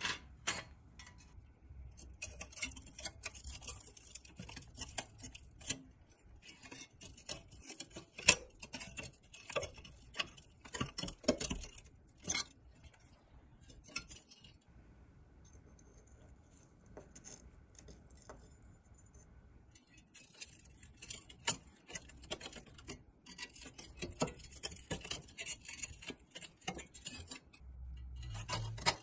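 Rusty pressed-steel parts of a 1956 Tonka toy truck clicking, clinking and scraping against each other and the bench as they are handled and pried at with a flathead screwdriver. There are two long runs of quick metallic clicks and scratching, with a quieter stretch of about six seconds between them.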